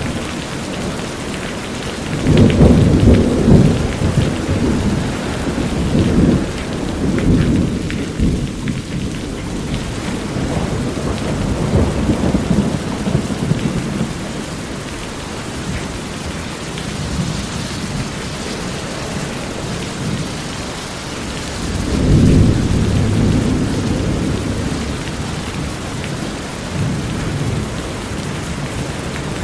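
Steady rain on a corrugated metal roof, with water running off the roof edge. Thunder rumbles through it, loudest a couple of seconds in and again about twenty-two seconds in.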